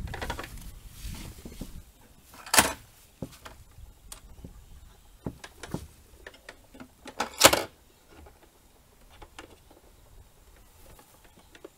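Telescopic aluminium legs of a plywood camp kitchen box being extended and locked in place with their knobs: two sharp clacks, about two and a half and seven and a half seconds in, among lighter clicks and rustling.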